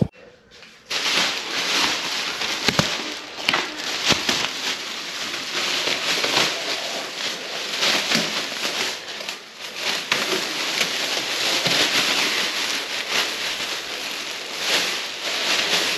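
Plastic wrap and bubble wrap crinkling and crackling as it is pulled off by hand, a dense unbroken run of small crackles that starts about a second in.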